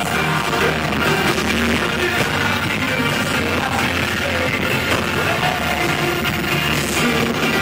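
Live concert music from a rock-style band with singing, loud and continuous, captured on a phone's microphone.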